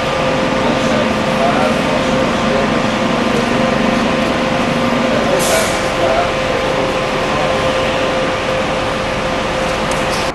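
Diesel double-decker bus engines running as a bus pulls away, with a short hiss of air from the air brakes about five and a half seconds in.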